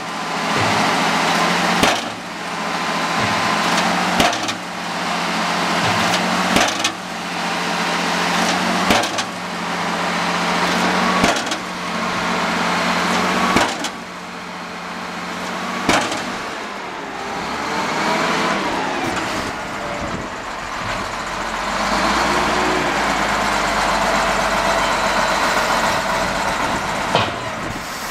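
Rapid impact compactor on a wheel loader pounding the ground: about eight heavy hammer blows, one every 2.3 seconds or so, each followed by the hydraulic lift of the ram, over the loader's running diesel engine. After about sixteen seconds the blows stop and the diesel engine runs on alone, its pitch rising and falling.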